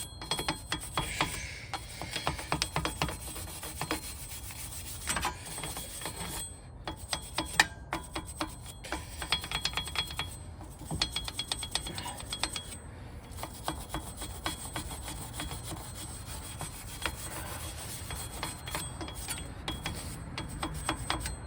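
A brush scrubbing the bare wheel hub after a spray of brake cleaner, cleaning it before a new rotor goes on. It is a rasping scrub in quick repeated strokes, with short pauses between runs.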